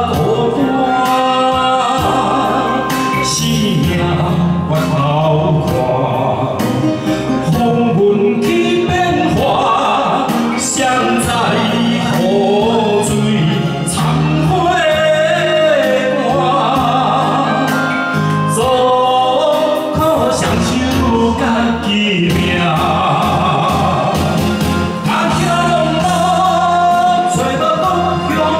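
A man sings a song into a handheld microphone, amplified, over musical accompaniment.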